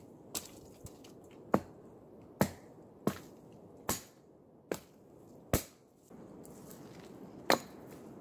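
Dry, dead branches snapping and cracking as they are broken through by hand: about nine sharp cracks at uneven intervals, roughly one a second.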